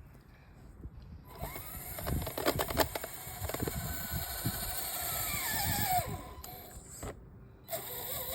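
Axial SCX10 RC crawler's electric motor and drivetrain whining as it drives through snow, with a quick run of clicks about two seconds in. The whine falls in pitch around five to six seconds in, cuts out briefly near the end, then picks up again.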